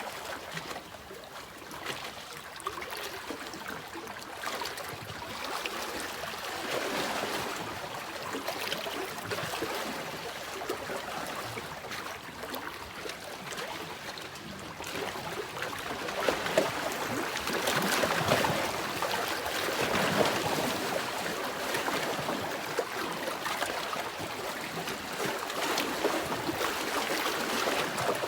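Sea waves washing in, a steady rush of water that swells louder about a quarter of the way through and again, more strongly, past the middle.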